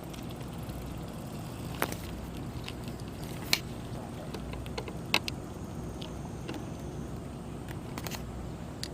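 Steady low rumble of a boat's diesel engine running, with a few scattered sharp clicks.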